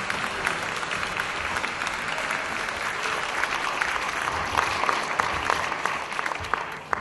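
Live theatre audience applauding, a dense patter of many hands clapping that thins out and stops near the end with a last few claps.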